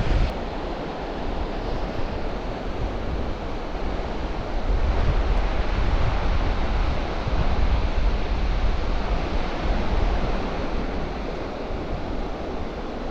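Strong wind blowing across an open sandy beach, buffeting the microphone with a low rumble over a steady rushing noise that swells and eases in gusts.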